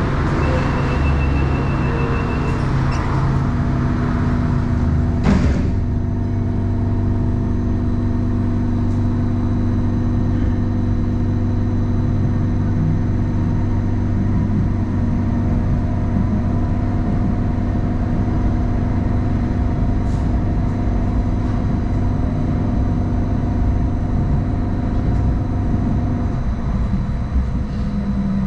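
Hong Kong Light Rail Phase I light rail train running, with a steady motor hum of several tones over the rumble of the wheels on the track. There is one sharp click about five seconds in, and the hum shifts in pitch near the end.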